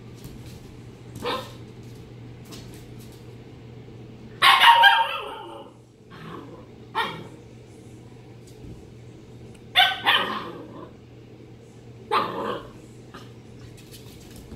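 Pomsky puppy barking and yipping in short separate outbursts at a cat, the loudest about four and a half seconds in and two more close together around ten seconds.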